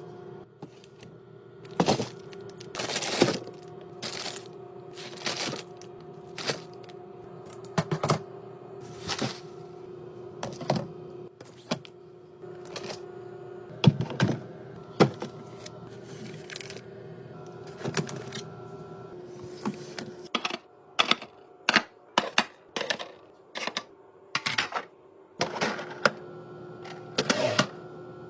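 Hard packaged items and containers clacking and knocking as they are set down and arranged one after another, irregular and some loud, over a steady hum.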